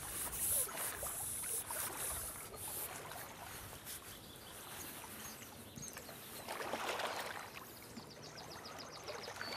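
Landing net with a bream in it being swung in from the lake and handled, with soft splashing and water dripping and trickling off the mesh.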